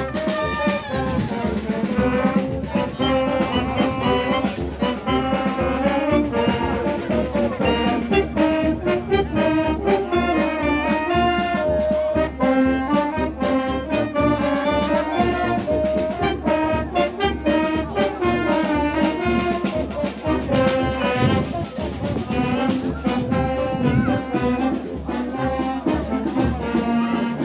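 Brass band playing a march: trumpets and trombones carry the tune over a steady drum beat.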